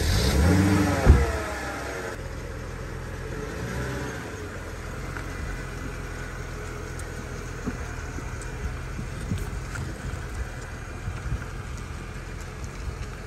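Mercedes SLK 55 AMG's 5.4-litre M113 V8 just after starting: its revs flare and settle in the first second, with a sharp thump about a second in, then it runs steadily at low revs as the car rolls off slowly, breathing through a newly fitted RennTech carbon fibre airbox.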